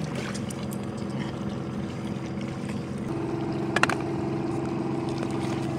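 A snapping shrimp (pistol shrimp) snapping its big claw: one sharp double snap just before four seconds in, plus a few fainter clicks. A steady engine hum runs underneath.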